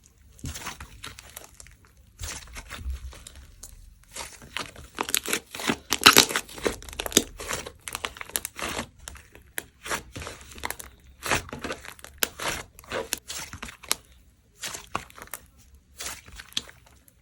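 Fluffy butter slime being squished, stretched and pulled by hand, giving irregular crackling, crinkling and sticky tearing sounds in quick handfuls with short pauses between them; the busiest, loudest stretch comes about six seconds in.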